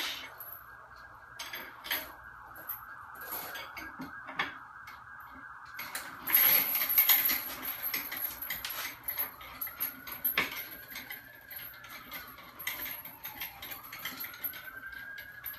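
Metal parts clinking, knocking and clattering as a DIY disc golf basket is fitted together and tightened, with a louder clatter about six seconds in. In the second half a faint siren wails slowly up and down in the background.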